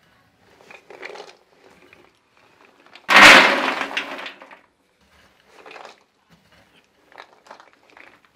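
Sharkara varatti, hard jaggery-coated fried plantain pieces, scraped and scooped with a steel bowl from a large pan. About three seconds in comes a loud rattling rush as a bowlful is poured into an aluminium pot, then quieter scrapes and rattles.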